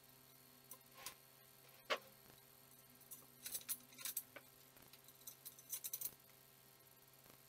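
Metal clinks and knocks from a square-tube metal frame being handled and fitted against a plywood board: a single sharp knock about two seconds in, then quick runs of clinking around the middle and near the end.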